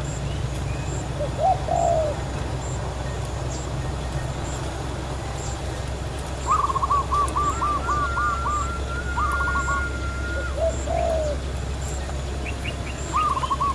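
Doves cooing: two short low coos, then rapid runs of quick cooing notes, about eight in a row, twice, plus a long held whistle in the middle. A faint high chirp repeats about once a second behind them.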